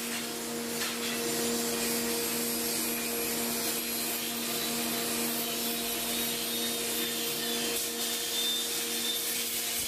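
Grinding machine running steadily: a constant motor hum with a rushing hiss over it.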